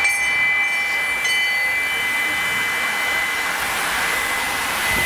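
A hand-rung race bell signalling a prize sprint lap. It is struck at the start and again about a second in, and its metallic ringing slowly dies away. Over the second half a rushing noise builds as the field of racing bikes passes.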